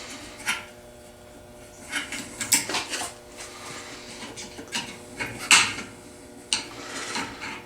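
Scattered metallic clicks and clinks of rusted vise-grip locking pliers being handled and worked by hand, the joint still stiff after a vinegar soak.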